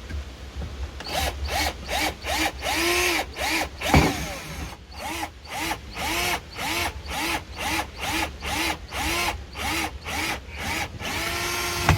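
Power drill-driver run in short trigger bursts, about three a second, each with a pitch that rises and falls. There is a sharp knock about four seconds in, and a longer steady run near the end.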